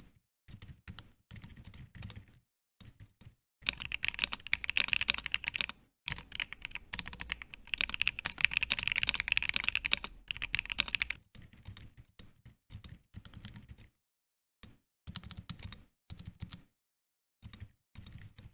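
Typing on a mechanical keyboard: short, soft bursts of keystrokes, with a stretch of faster, louder continuous typing from about four to eleven seconds in.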